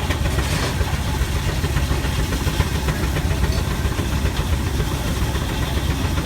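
Case steam traction engine running steadily while driving a sawmill, a low, rapid, even pulsing.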